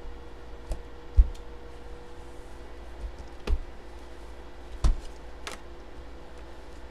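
A plastic-bagged sports jersey being handled and turned over on a tabletop: five scattered knocks and crinkles, the loudest about a second in and a short rustle near the end, over a faint steady hum.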